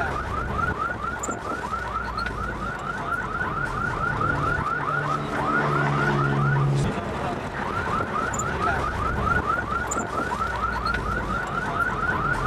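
Electronic vehicle alarm warbling in quick repeated chirps, about five a second, over a low hum. It breaks off briefly about seven seconds in, then starts again.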